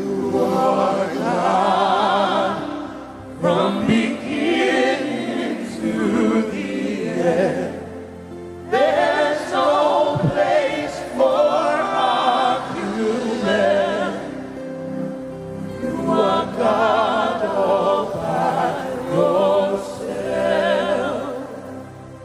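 Voices singing a slow gospel worship song in long, wavering phrases, with steady held chords underneath. The singing thins out near the end.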